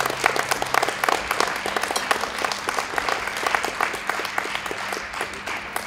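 Audience applauding: dense, steady clapping that slowly dies down near the end.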